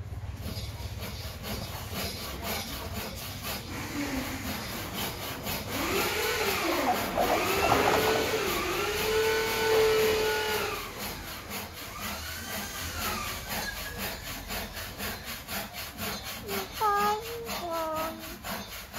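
Caged common hill myna calling: a long run of drawn-out, arching whistled notes in the middle, then a few short, sharp falling notes near the end. A fast, regular rasping tick runs underneath throughout.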